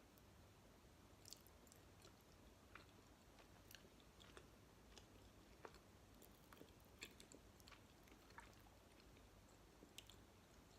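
Faint close-up chewing of soft jelly and gummy candy: irregular wet mouth clicks and smacks, the louder ones about seven seconds in and near the end.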